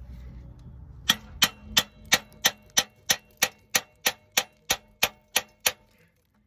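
Socket ratchet on a long extension clicking steadily, about three clicks a second, some fifteen in a row, then stopping.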